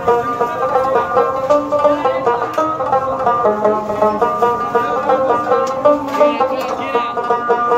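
Background music: a plucked string instrument playing a quick, busy melody at a steady level.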